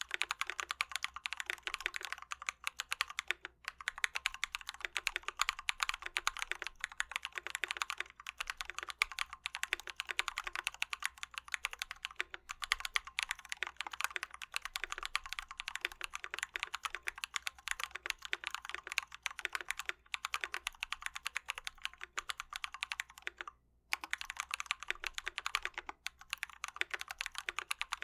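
Fast, continuous typing on a KBD75v2 custom mechanical keyboard with Glorious Panda tactile switches lubed with Krytox 205g0 and PBT keycaps: a dense run of rapid keystrokes, with a brief pause about four seconds before the end.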